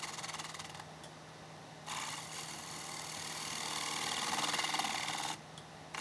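Wood lathe running with a steady hum, while a tool or abrasive is held against the spinning wooden bowl in stretches, briefly at the start and then from about two seconds in to about five and a half seconds, where it grows louder.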